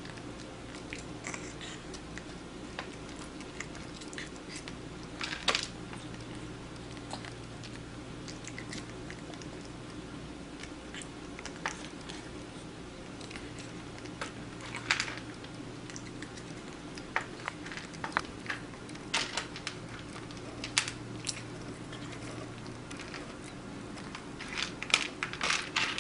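Kitten eating from a small plastic bowl held up to it: scattered short crunches and clicks, bunched in a few clusters, over a low steady hum.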